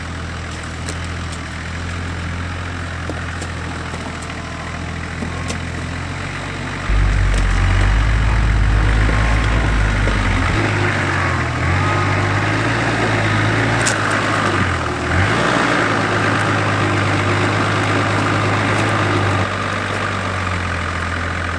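Toyota Land Cruiser 80 series engine pulling slowly at low revs as the 4x4 crawls over rocks. About seven seconds in it takes more throttle and load and runs louder, then eases back near the end.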